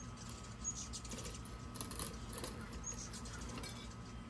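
A few faint, short bird chirps over quiet background noise.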